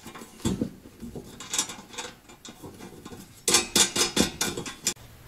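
Light metallic clinks and rattles of slotted steel angle being fitted together by hand. A few scattered clinks come first, then a quicker run of them about three and a half seconds in that stops abruptly about a second later.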